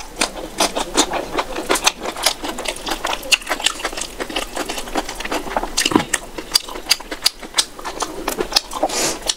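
Close-miked chewing and lip-smacking of a mouthful of rice and chicken curry eaten by hand: a dense, uneven run of sharp mouth clicks and smacks.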